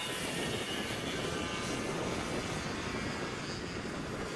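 Racing karts' small engines running at speed on the track, a steady drone.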